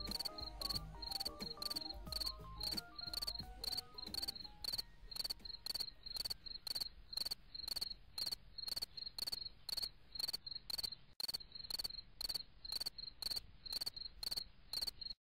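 Cricket chirping in a steady rhythm, about three chirps a second, over the tail of a fading piece of music that dies away in the first few seconds; the chirping cuts off suddenly near the end.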